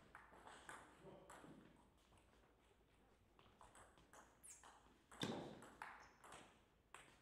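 Table tennis ball ticking off the rackets and the table during a rally: a string of short, sharp clicks at uneven spacing, the loudest about five seconds in.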